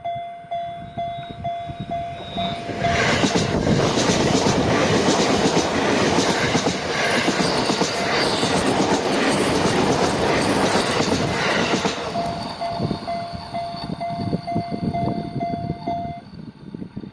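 Japanese level-crossing warning bell clanging in a steady rapid rhythm. About three seconds in, it is drowned out by a JR Sobu Line train passing through the crossing for around nine seconds, its wheels clattering. The bell is heard again as the train moves off, then stops near the end.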